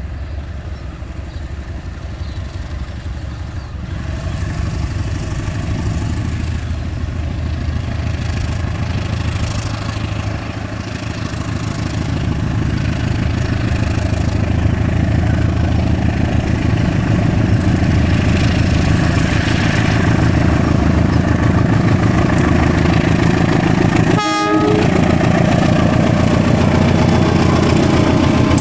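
CC 201 diesel-electric locomotive's engine running hard under power as it pulls away with its train, growing steadily louder as it approaches and passes. There is a brief break about three-quarters of the way through.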